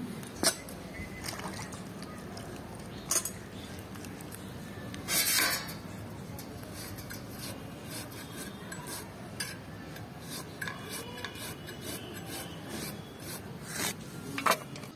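Bottle gourd being peeled and sliced on a bonti, an upright curved blade, the rind and flesh scraping against the edge in a steady rasping, with a few sharp clicks and a louder brief scrape about five seconds in.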